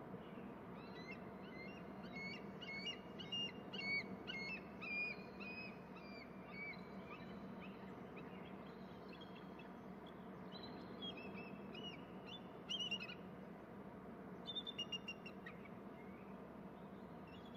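A pair of bald eagles calling back and forth at the nest: a long run of high, thin, chittering notes, each falling in pitch, answered by shorter bouts of the same calls about ten seconds in and again near the end. A steady low hum runs underneath.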